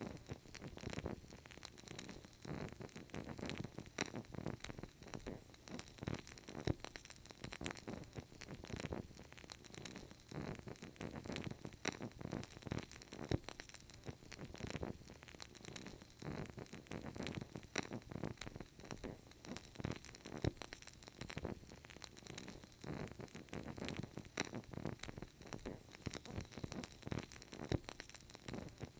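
Burning candle crackling softly: many small, irregular ticks and pops over a faint hiss.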